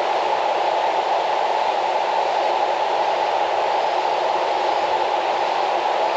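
Loud, steady rushing of a mountain river in flood, swollen by typhoon rain, with no breaks or separate knocks.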